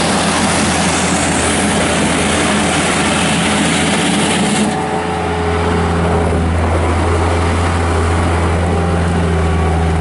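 The 46-horsepower naturally aspirated four-cylinder Kubota diesel of a 2001 Bobcat 773G skid steer running hard as the machine drives across gravel. About five seconds in, the hiss drops away and a steady low drone takes over.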